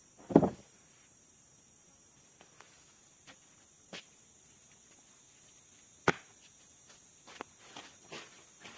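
A single heavy thump about half a second in, then scattered light clicks and taps, with one sharp click about six seconds in, over a faint steady background. The saw is not running.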